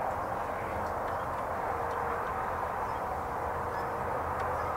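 Steady outdoor background drone of distant engine noise, with a few faint light clicks.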